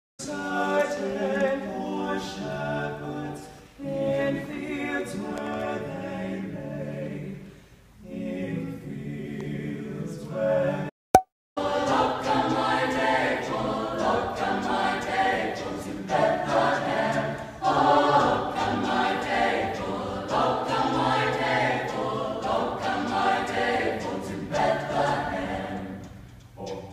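A choir singing a slow piece in held phrases with short breaks. About eleven seconds in the sound drops out for a moment at a cut, then the singing comes back fuller and louder.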